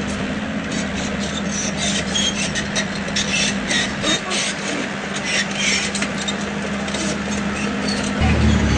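Crawler bulldozer working on a gravel road: its diesel engine running steadily, under irregular clanks and crunches from the tracks and stone. A louder, deeper rumble comes in near the end.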